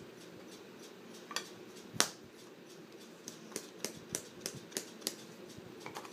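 Sharp clicks and taps from hands handling a can of dipping tobacco. One loud click comes about two seconds in, then a run of lighter taps about three a second, and one more near the end.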